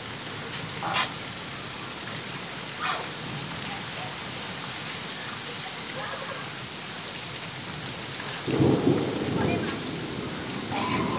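Steady rain falling on a shallow puddle and the ground around it. About eight and a half seconds in, a louder low rumble rises for a second or two.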